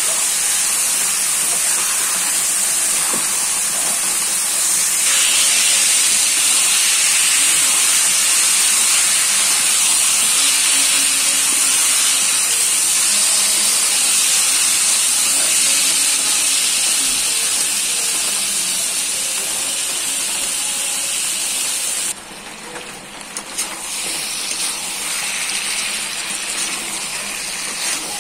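Chicken pieces sizzling in hot oil and onion-spice masala in a kadai while being stirred with a spatula: a loud, steady frying hiss. About three-quarters of the way through it drops off sharply, then comes back a little quieter.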